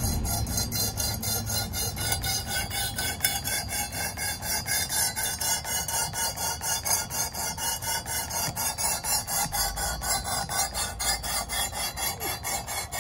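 220-grit stone of a Work Sharp guided knife sharpener being stroked by hand along a clamped knife blade, a steady rasping at about three to four strokes a second.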